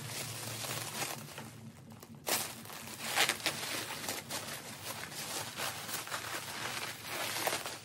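Plastic bubble wrap and air-cushion packing crinkling and rustling as it is pulled off and bunched up by hand, with a couple of louder crackles near the middle.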